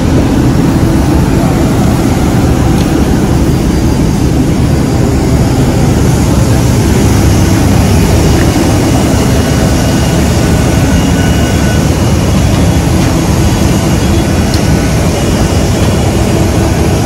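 Steady, loud roar of jet aircraft noise on an airport apron.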